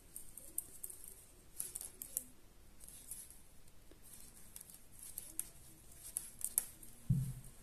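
Thin metal knitting needles, about size 4, clicking and scraping together as stitches are worked, making light, irregular ticks. A soft low thump near the end.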